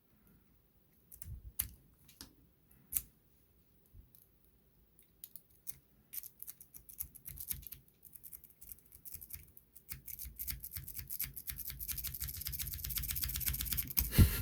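Rake pick working in and out of a Master Lock 3 padlock's keyway, a fast metallic clicking and scraping as it jostles the pin tumblers. A few scattered clicks at first, then rapid raking from about six seconds in that grows louder, with one sharp click near the end.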